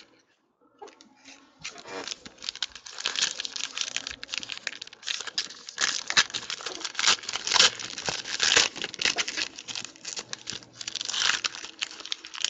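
The foil wrapper of a 2015 Panini Clear Vision football card pack being torn open and crinkled by hand: a dense, crackling rustle that starts about one and a half seconds in.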